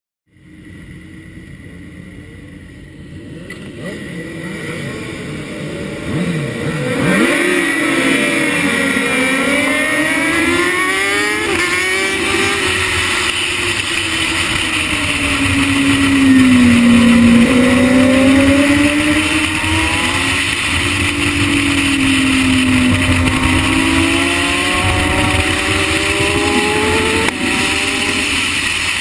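Onboard sound of a racing superbike at speed: the engine revs climb through repeated gear changes, then dip and rise again through the corners, with wind rushing over the microphone. It starts quieter and grows louder over the first several seconds.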